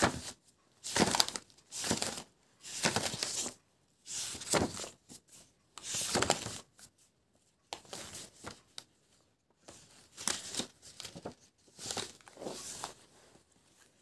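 Paper pages of a spiral-bound sketchbook being flipped by hand one after another, each turn a short papery swish, about a dozen in all at roughly one a second, softer toward the end.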